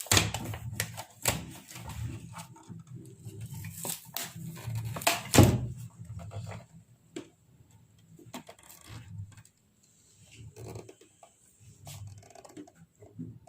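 Irregular clicks, taps and light knocks of parts and tools being handled on a workbench, busiest in the first half, with one louder knock about five seconds in.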